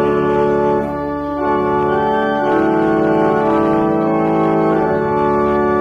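Church organ playing slow, sustained chords that change every second or so, closing out the congregation's psalm tune.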